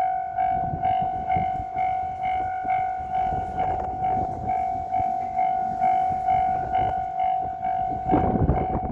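Japanese railway level crossing warning bell ringing in a steady, evenly repeating ding, about two and a half strikes a second. Near the end a louder rumble joins it, as a train reaches the crossing.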